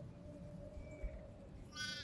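A sheep bleats once, briefly and high-pitched, near the end.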